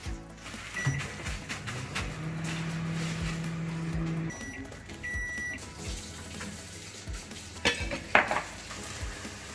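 Countertop microwave oven melting a bowl of butter: a keypad beep, then the oven running with a steady low hum that stops, followed by two beeps, the second longer. Near the end a glass bowl clinks twice as it is handled.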